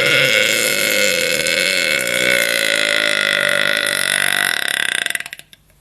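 A woman's long, loud burp: one unbroken belch lasting over five seconds. It sinks lower in pitch partway through and breaks into a rattling stutter before cutting off near the end.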